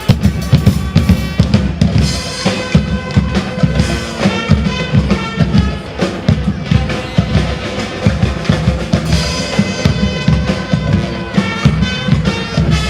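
Music with a drum kit keeping a steady beat, bass drum and snare under pitched instruments.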